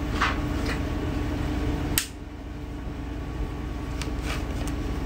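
Steady hum from a small electric machine, cut off by a sharp click about two seconds in. Light clicks and rustles come from handling test packets and equipment on the table.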